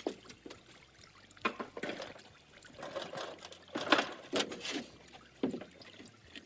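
Lake water splashing and trickling in irregular bursts, stirred up as a wheel is worked onto a boat lift at the water's edge.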